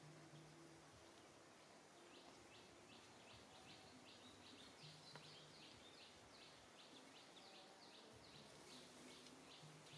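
Near silence with a faint bird calling: a quick run of short high notes, about four a second, starting about two seconds in.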